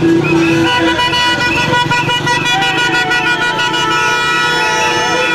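Several car horns honking at once, their held tones overlapping, with one horn sounding a run of short repeated toots in the first second.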